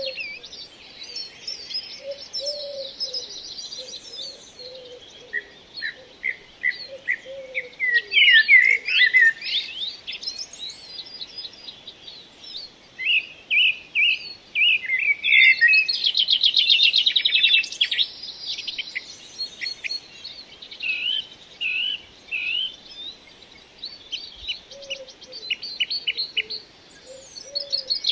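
Several birds chirping and singing at once, with short whistled notes and fast rattling trills, and a few low notes now and then.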